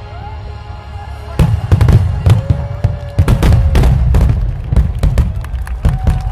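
Fireworks going off in a rapid barrage of bangs and crackles that starts about a second and a half in and keeps going until near the end, over background music.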